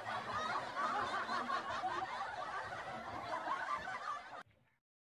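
People's voices chattering and laughing, cutting off suddenly about four seconds in.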